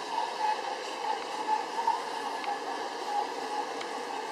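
Large-scale garden model train running on its track: a steady rolling and motor noise, with a few faint clicks of the wheels over the rail joints.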